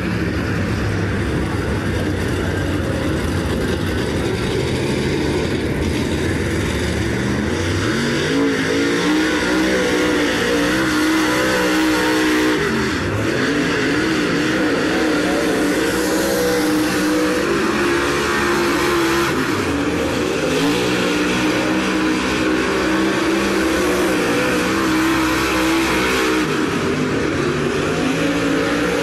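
Dirt Super Late Model race car's V8 engine running a qualifying lap. Its note holds low at first, then climbs about seven seconds in as the car comes up to speed. It then drops and rises again three times as the driver lifts for the turns and gets back on the throttle.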